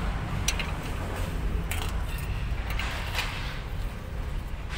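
A few small metal clicks and clinks as a brake chamber caging bolt and a hand tool are handled, over a steady low rumble.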